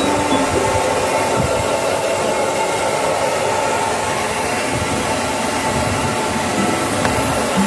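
Handheld hair dryer running steadily, its rushing air carrying a steady whine, as it blows on a wet dog's coat.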